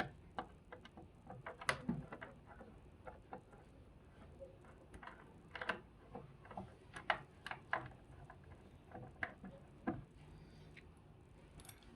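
Scattered light clicks and taps, irregular and unevenly loud, from hands handling the plastic caster wheels and the air conditioner's base during the wheel change.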